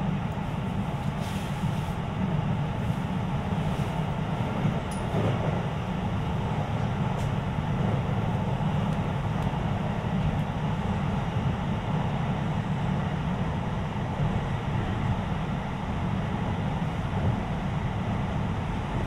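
Interior running noise of a Sotetsu 20000 series electric train travelling between stations: a steady rumble of the wheels on the rails, with a few faint clicks.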